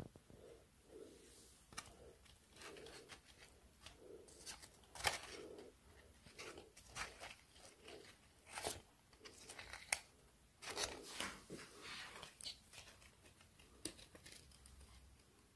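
Faint rustling and crinkling of paper and plastic being handled, with many scattered small crackles and taps.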